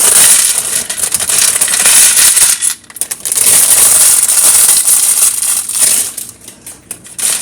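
A plastic Lego parts bag being torn open and handled, loud crinkling with small plastic pieces clicking and clattering. It pauses briefly just before the three-second mark and thins out near the end.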